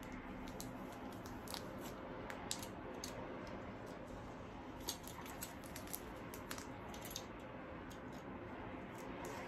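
Faint, scattered small clicks and scratches of a box cutter working through the plastic wrap of a CD package, with the wrap being handled.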